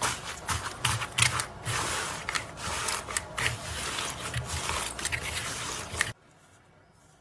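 Slime being squished and stretched by hand, a busy run of sticky clicks and crackles that cuts off abruptly about six seconds in.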